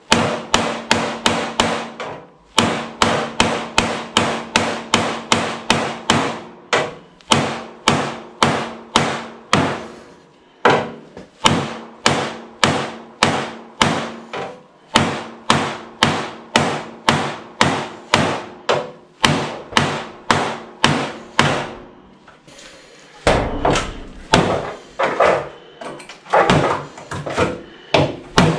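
Spine of a KA-BAR 1245 tanto fighting knife hacked again and again into the sheet-metal edge of a car door, about two blows a second. Each strike leaves the door panel ringing. The blows stop briefly near the end of the run, then carry on.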